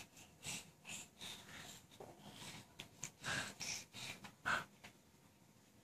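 A baby making a string of short, faint breathy huffs and snorts, about nine of them, which stop about four and a half seconds in.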